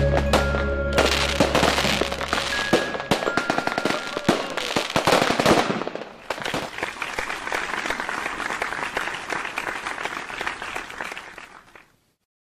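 Fireworks display: a run of sharp bangs and crackling bursts, turning into dense crackling in the second half and cutting off suddenly near the end. Background music fades out over the first couple of seconds.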